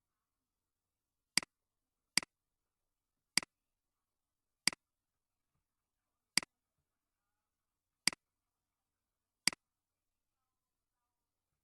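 Computer mouse button clicked seven times at uneven intervals. Each click is a short, sharp snap followed at once by a softer second tick.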